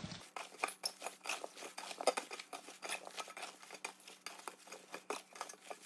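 Gloved hands tossing chonggak radishes and their greens with chili flakes in a stainless steel bowl: a dense, irregular run of small rustles and crackles.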